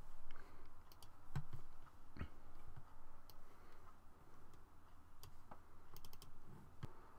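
Faint clicks of a computer mouse and keyboard, scattered one at a time, with a quick run of several clicks about six seconds in.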